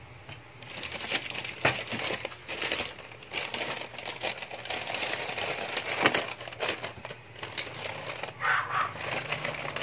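Plastic wrapping crinkling and rustling as food is unwrapped and handled, with many sharp clicks and light knocks against a ceramic plate.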